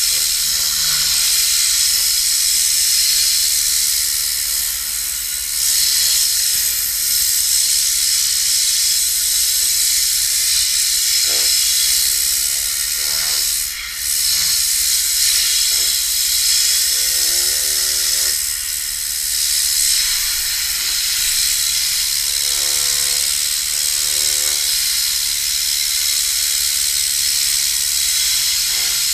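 Compressed air hissing steadily from an air-powered detailing gun blowing out carpet, easing off for a moment about fourteen seconds in.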